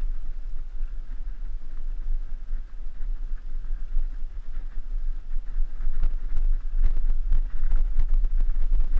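Wind buffeting the microphone of a camera riding along on a mountain bike on a dirt forest track, a steady low rumble. The bike rattles over the bumps, with sharper knocks and clicks coming more often in the second half.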